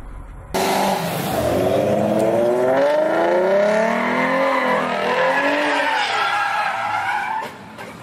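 Tires squealing loudly as a Ford Mustang drifts sideways, the screech wavering up and down in pitch. It starts abruptly about half a second in and drops away near the end.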